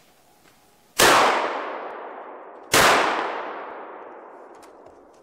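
Two shots from a hunting gun, about a second in and again near three seconds, each with a long fading echo through the forest. They are fired at a deer running past.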